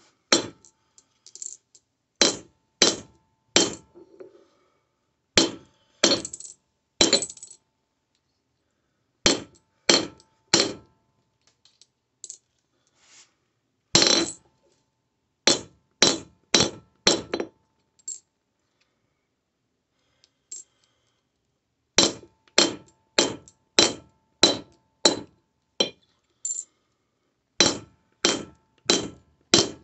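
Hammer blows on a sterling silver square laid on a steel anvil during hand forging. The strikes come in runs of several, about two a second, with pauses of a few seconds between runs, and many leave a short metallic ring.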